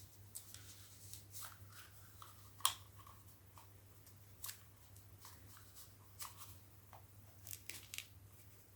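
Faint rustling and scattered light clicks of product packaging being handled and opened by hand, with one sharper click about two and a half seconds in, over a low steady hum.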